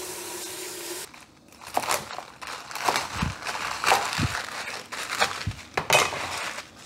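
Kitchen tap running into a steel sink for about a second, then a knife chopping fresh mustard greens on a plastic cutting board: irregular crunching chops through the crisp stems.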